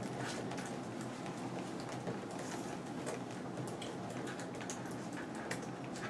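Quiet room tone: a steady low hum with scattered faint clicks and rustles.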